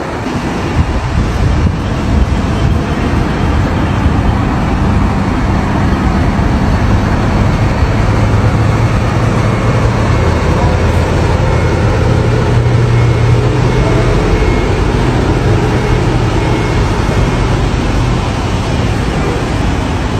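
Large bus engine running close by amid road and traffic noise, a low steady drone that grows stronger about a third of the way in and eases near the end.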